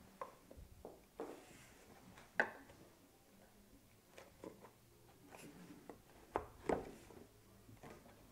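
Scattered light wooden clicks and knocks as the sliding wooden sticks of a secret puzzle box are pushed in and out, the sharpest about two and a half seconds in and two more close together near the end.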